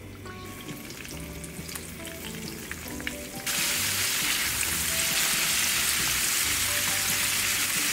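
Battered chicken tenders deep-frying in oil. The sizzle is faint at first, then jumps suddenly to a loud, steady hiss about three and a half seconds in.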